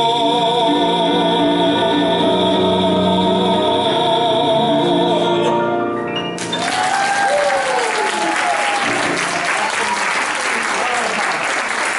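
A male classical-style singer holds a long final note with vibrato; the song ends about six seconds in and the audience breaks into applause that continues.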